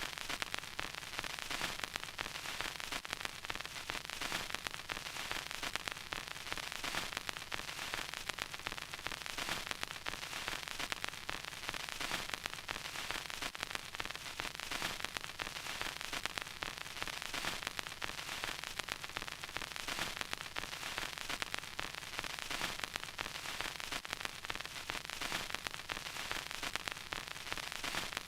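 Vinyl record surface crackle: a steady soft hiss densely peppered with small clicks and pops.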